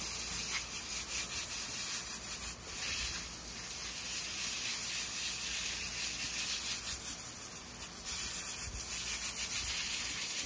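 Water spraying from a hose nozzle onto a gutted speckled trout, rinsing the blood out of its cavity along the cut backbone: a steady hiss with a few brief dips.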